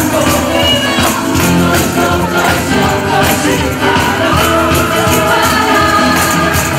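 Loud gospel worship music with singing over a regular beat, with tambourine jingles.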